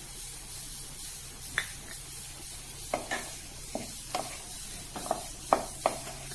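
Wooden spatula stirring paneer bhurji in a steel kadai, with sharp scrapes and knocks against the pan, most of them in the second half. Beneath it run a faint sizzle of the frying mix and a steady low hum.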